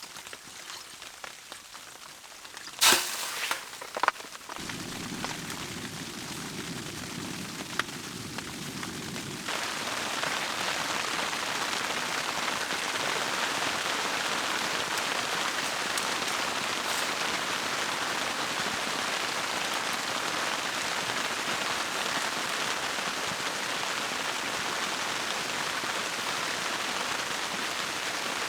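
A few sharp clicks, then a steady hiss of rain that starts abruptly about ten seconds in and holds evenly.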